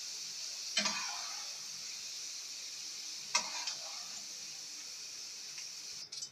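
Potato fries sizzling in hot oil, with a metal strainer clattering against the pan twice, about a second in and again just past three seconds, as the fries are scooped out. The sizzle stops abruptly near the end.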